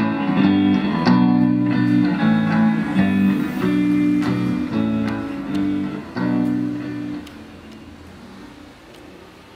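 Electric guitar played through effects pedals, picking a repeating figure of notes, last struck about six seconds in and stopping about a second later, leaving a fading tail.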